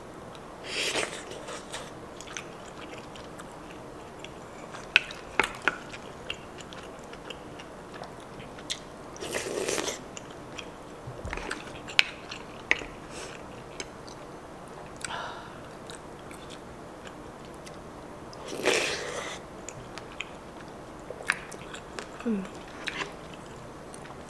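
Close-miked eating sounds: chewing and biting on spicy seafood stew with mussels and rice. Sharp clicks are scattered throughout, and a few louder noisy sounds of about half a second come roughly four times.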